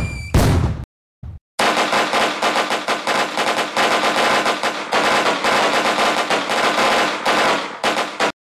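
Recorded firecracker sound effect: one loud bang at the start, then after a short gap a long, dense string of firecrackers going off in rapid, rattling reports like a machine gun. The string stops abruptly near the end.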